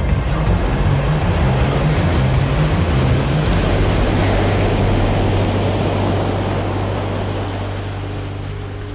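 Sea surf rushing as a steady wash of noise, with a low, steady hum underneath from a few seconds in. It fades gradually toward the end.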